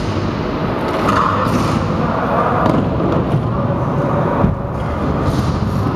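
Stunt scooter wheels rolling and knocking on the concrete ramps, a steady rumble broken by several thuds, the loudest about four and a half seconds in; the big hall echoes.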